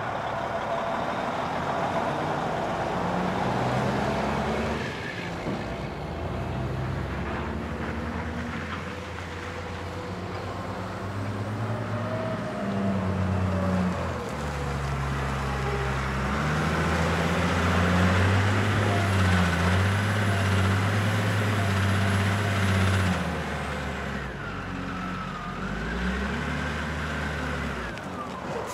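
Construction site ambience: heavy diesel machinery and trucks running together, their engines rising and falling in pitch as they work.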